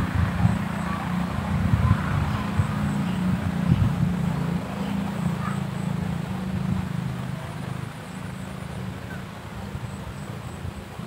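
A motor engine running steadily with a low hum, easing off over the last few seconds, with low thuds.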